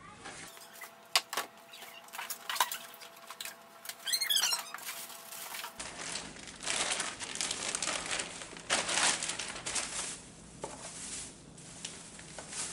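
Plastic bag crinkling and rustling as it is handled and pulled off a lawn tractor seat, with a few sharp clacks of hard plastic panels being handled near the start.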